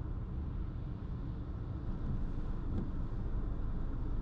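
Car driving on a wet road: a steady low rumble of road and engine noise, slightly louder from about two seconds in.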